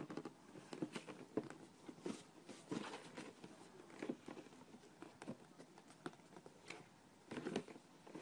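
Faint, irregular taps and scratches of a kitten moving inside a cardboard box and pushing at a hole in its lid, with a small cluster of louder taps near the end.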